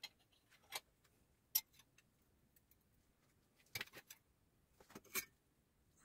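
Sharp metal clinks and taps as a spoon is worked against the steel pegs of a bending jig: a handful of separate knocks at uneven intervals, the loudest about one and a half seconds in, with a quick cluster around four seconds.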